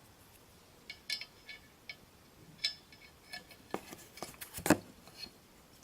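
Metal housing of an Edwards Adaptahorn fire alarm horn being closed back up by hand: a string of small, sharp metallic clicks and clinks, each with a brief ring. The loudest comes a little over four and a half seconds in.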